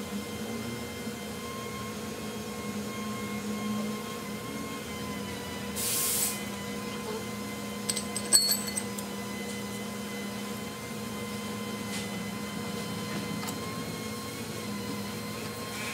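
Steady low hum of the workshop, with a brief hiss about six seconds in. A couple of seconds later come a few ringing metal clinks as hand tools are picked up off the floor.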